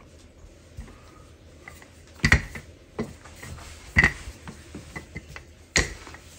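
Wooden rolling pin rolling out a sheet of puff pastry on a silicone baking mat, with four sharp knocks as it is worked, the loudest about two and four seconds in.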